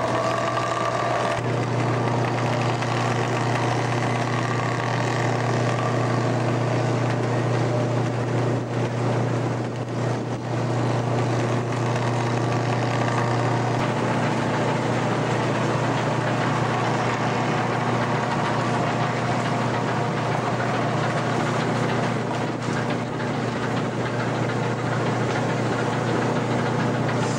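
Steady drone of a ship's engine and deck machinery: a constant low hum under a broad wash of noise, easing a little about halfway through.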